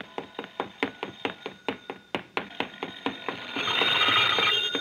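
Quick running footsteps, about five a second, made as radio sound effects. A telephone bell rings under them and grows loud near the end.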